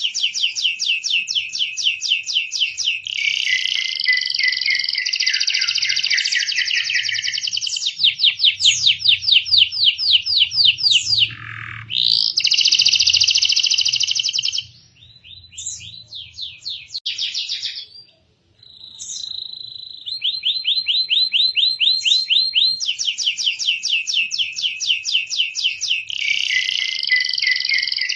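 Domestic canary singing a long song of rapid trills, rolling between higher and lower phrases, with a few short breaks about halfway through.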